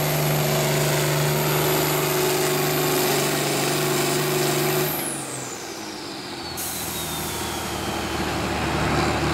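International Harvester 1066's turbocharged diesel engine running hard under full load while pulling the sled. About five seconds in the throttle is cut: the engine note drops away and the turbo's whistle falls steadily in pitch over the next few seconds as the engine settles back.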